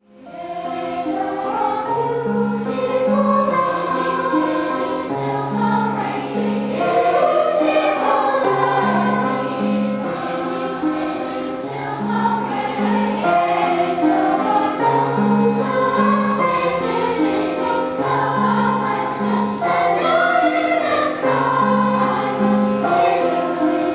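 A choir singing over a steady, repeating instrumental accompaniment; the music fades in at the very start.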